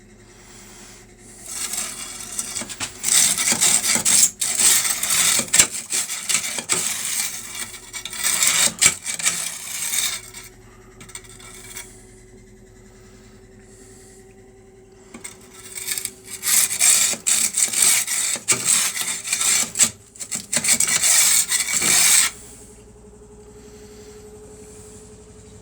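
A saw blade scraping and rasping back and forth inside a Bosch Junkers gas boiler to clean off deposits, in two long bouts of rapid strokes separated by a pause of several seconds. A faint steady hum runs underneath.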